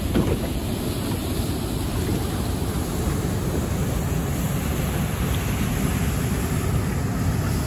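Steady rush of fast, turbulent river water around an aluminium boat, with wind buffeting the microphone; a brief knock right at the start.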